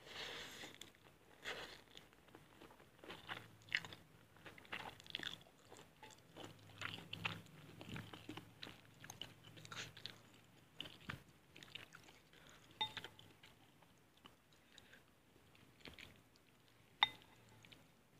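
Close-miked eating of mie goreng instant fried noodles: a slurp of noodles at the start, then wet chewing with small crunches and mouth clicks. Wooden utensils knock a few times against the glass bowl with a brief ring, the sharpest knock near the end.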